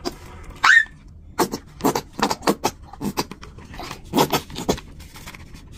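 Thin plastic crinkling and crackling as a zip-lock bag is handled while a plastic squeeze bottle of gel face wash is pressed into it, in short irregular crackles. There is one brief rising squeak just under a second in.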